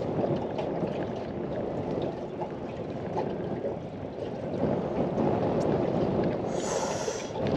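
A small aluminium boat under way at trolling speed: a steady low rumble of water washing against the hull, with the outboard running slowly. A short hiss comes near the end.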